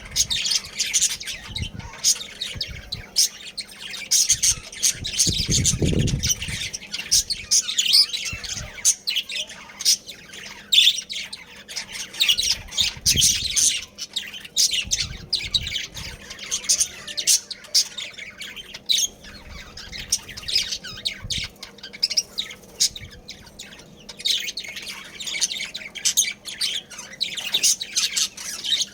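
Budgerigars chattering nonstop in rapid, high chirps, squawks and warbles, with a few low thuds among them, the strongest about six seconds in.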